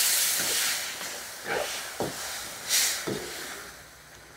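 Water sizzling and hissing as it hits caramelized sugar and aromatics in a hot steel wok, the hiss dying away over a few seconds. A few short scrapes of a metal spatula against the wok come through as it fades.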